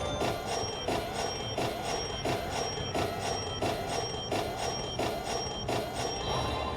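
Coin Trio slot machine playing its bonus-round sound: a short electronic chime repeating evenly about every two-thirds of a second, ten or so times.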